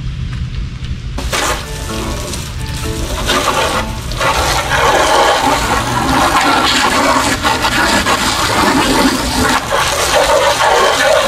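Water spraying hard onto a car during washing, starting abruptly about a second in and getting louder.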